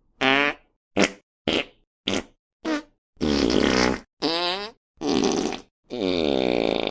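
A series of fart sound effects: five short blasts about half a second apart, then four longer ones of close to a second each, the last still going at the end.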